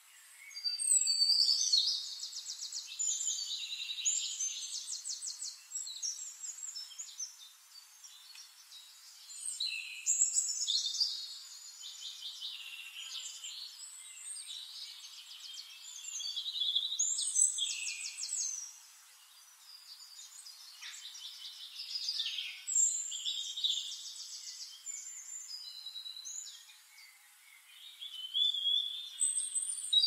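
Songbirds singing: long, high-pitched phrases of fast trills and warbles, a new loud phrase every six to nine seconds with softer song in between.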